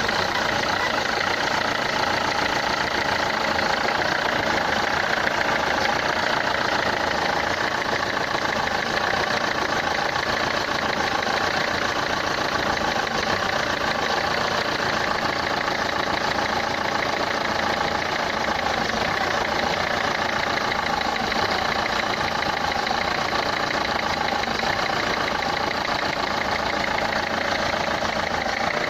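Renault Clio 3 1.5 dCi four-cylinder diesel engine idling steadily with a fast, even clatter. The noise is put down to the injectors.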